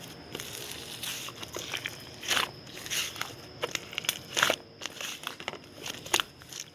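Someone biting and chewing a crunchy corn-cheese snack: irregular crisp crunches, with the loudest bites about two and a half and four and a half seconds in.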